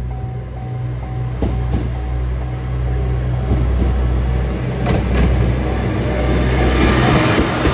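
Diesel train running with a steady low engine rumble, growing louder near the end with scattered wheel clicks. A short repeated tone sounds in the first second or so.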